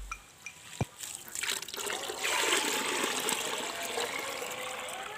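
Water poured in a heavy stream from a bucket into a plastic tub that already holds water, splashing. It starts about a second and a half in and is loudest in the middle.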